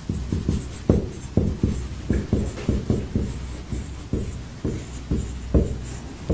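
Felt-tip marker writing on a whiteboard: an irregular run of short taps and scrapes, a few a second, as each letter is drawn.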